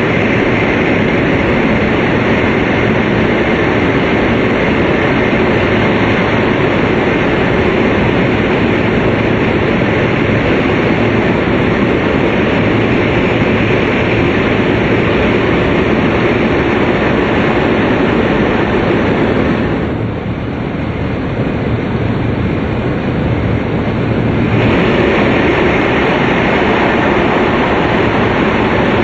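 Shinkansen train running at speed, a steady loud rumble and rush heard from inside the passenger car. About two-thirds of the way through it turns briefly quieter and duller for some four seconds, then comes back to full level.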